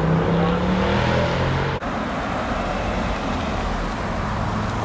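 Car engines passing close by: an engine rises in pitch as one car accelerates, then after a sudden cut about two seconds in, a Range Rover Sport drives past with steady engine and tyre noise.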